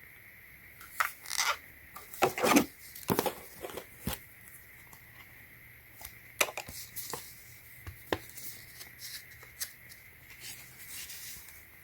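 Handling noises from a power bank and its accessories being picked up and turned over: scattered clicks, rubs and rustles, loudest about two to three seconds in.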